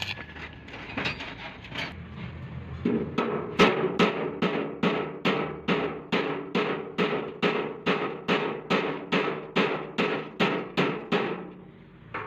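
A hammer striking metal in a steady, even rhythm of about two and a half blows a second, each blow ringing briefly. The blows start about three and a half seconds in and stop shortly before the end.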